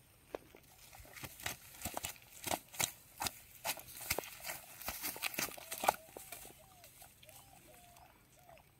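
Dry grass and a mesh fishing net being handled, a run of sharp irregular crackles and snaps for the first six seconds or so. Near the end a faint wavering call comes in.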